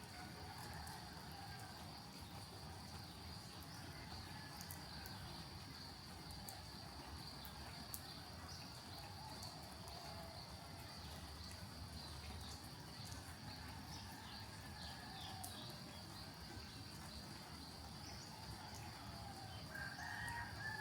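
Faint rooster crowing: several calls, with the clearest one near the end, over a steady high-pitched drone.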